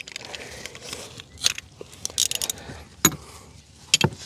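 Scattered small clicks and light rattles of fuel pump parts being handled, with a few sharper clicks about three seconds in and near the end.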